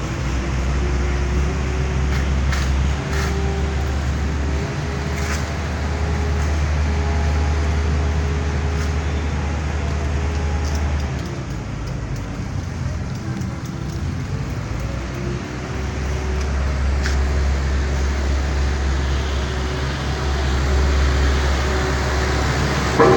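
Diesel engines of asphalt-paving machinery running with a steady low rumble, which drops away for a few seconds about halfway through and then comes back.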